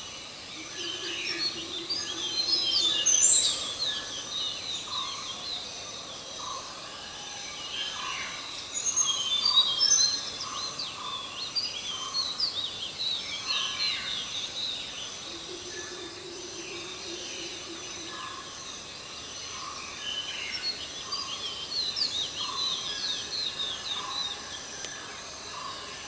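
Several birds calling together, a dense chatter of quick high chirps over a single note repeated about once a second. A low steady drone comes in twice, for a few seconds each time.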